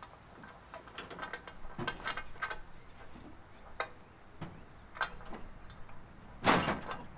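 Scattered light knocks and clicks of a man climbing into a pickup truck's bed and handling its metal rack, with one louder thump about six and a half seconds in.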